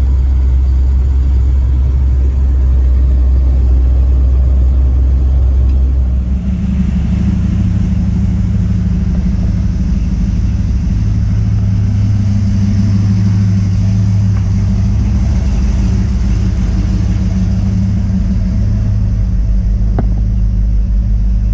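Engine of a GMC pickup stunt truck, mounted under the cab, running as the truck drives, heard from inside the cab as a deep rumble. About six seconds in the sound changes abruptly to a steadier engine hum.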